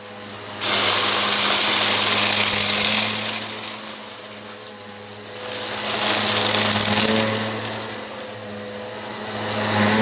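Eureka PowerSpeed vacuum cleaner running with a steady motor hum. Its rushing suction noise swells and eases in long passes: a loud surge starting about half a second in, another around six seconds, and a third near the end.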